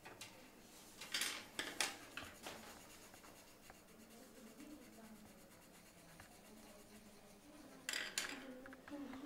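Pencils scratching and tapping on a desk as children draw: two short clusters of scratchy clicks, about a second in and again near the end, with a faint murmured voice between.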